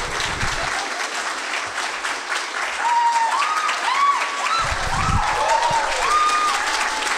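Audience applauding steadily. Partway through, a line of short notes that rise and fall is heard over the clapping.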